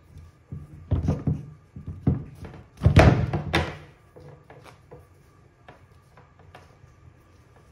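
Knocks and thunks of a Ryobi rotary hammer drill being handled and turned around on a wooden workbench. A cluster of heavy knocks comes over the first four seconds, loudest about three seconds in, followed by a few light clicks.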